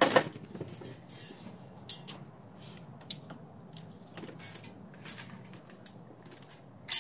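Square steel tubing being handled and set down on a steel workbench. There is a sharp metal knock at the start, scattered light scrapes and taps as it is steadied, and another sharp knock near the end.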